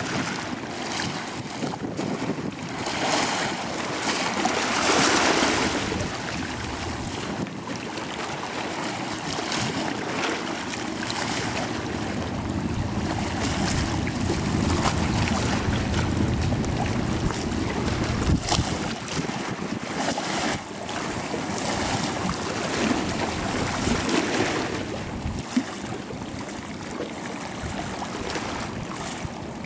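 Low rumble of a high-speed catamaran ferry's engines and the rush of its wake and choppy water as it passes close by, with wind buffeting the microphone in gusts.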